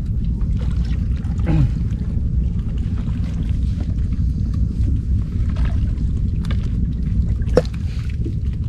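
Steady low rumble aboard a fishing boat at sea, with a few faint knocks and one sharper knock near the end.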